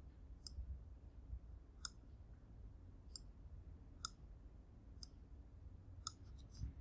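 Faint computer mouse clicks, about seven sharp ones spaced roughly a second apart, over a low room hum.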